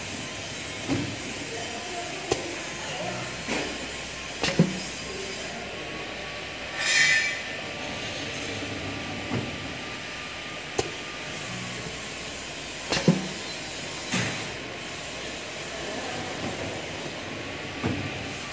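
Waffle-wafer baking machine running: a steady mechanical hum with sharp metal clacks every few seconds as its hinged baking plates open and shut, and a short hiss about seven seconds in.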